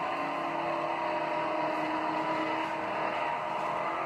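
High-performance racing powerboats, an Eliminator 25 Daytona catamaran with a Keith Eickert 800 engine and an Obsession 28, running flat out across the water. Their engines make a steady drone that holds its pitch.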